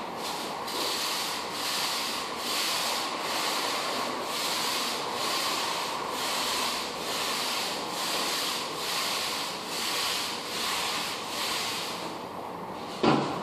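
Rhythmic back-and-forth rubbing strokes on a hardwood floor, about two a second, then a single sharp knock near the end.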